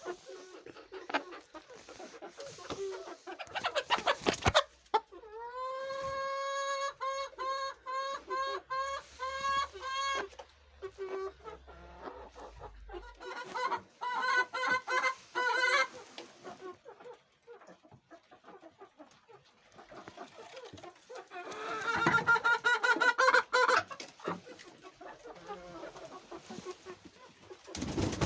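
Chickens clucking and calling, with three bouts of loud, rapidly repeated pitched calls, the longest lasting about five seconds, and scattered clicks between them.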